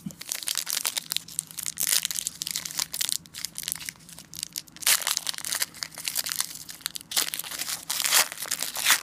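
Foil wrapper of a 2013 Momentum football card pack being crinkled and torn open by hand, a dense crackling, with louder bursts of crinkling about five seconds in and again near the end.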